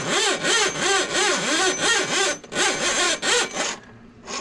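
Drum-type drain-cleaning machine spinning its cable in a kitchen drain line clogged with grease, giving a whine that rises and falls over and over; it stops about three-quarters of the way through.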